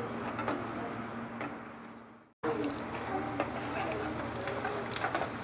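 Sliced onions frying in oil in an aluminium karahi: a steady sizzle that fades out and breaks off about two seconds in, then starts again with a metal spatula stirring and scraping through them.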